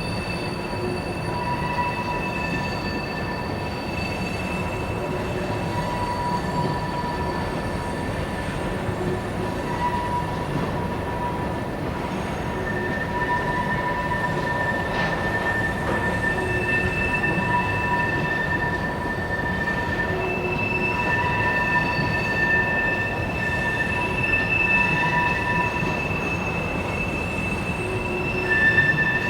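Freight oil train's cars rolling past, with steel wheels squealing in several steady high-pitched tones that fade in and out over the constant rumble of the wheels on the rails.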